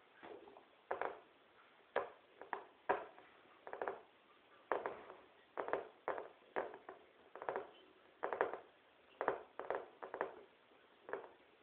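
A string of short scratchy pats or taps on a floor, uneven, about one to two a second.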